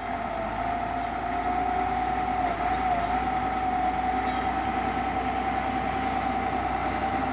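14-ton bulldozer running steadily, a diesel rumble with a strong high whine held at one pitch throughout.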